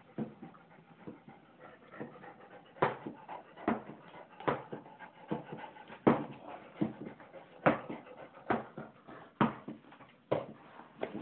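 Pet ferret making short, sharp vocal sounds, repeated about once a second.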